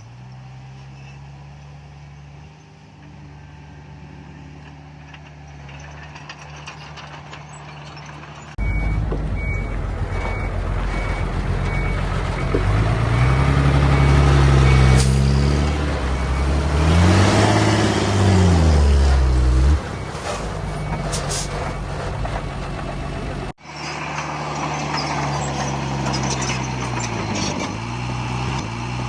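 Heavy diesel earthmoving machines running. A steady engine drone gives way to a louder engine that revs up and down, with a reversing alarm beeping repeatedly for several seconds, then steady engine running again.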